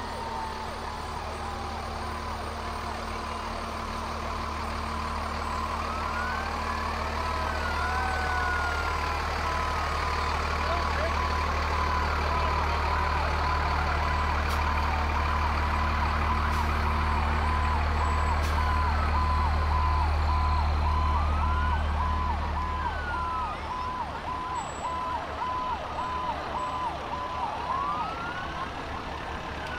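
Fire engines rolling slowly past: a truck's diesel engine rumble swells as it passes close and fades away about three-quarters of the way through, while sirens wail up and down further off and a beep repeats about twice a second.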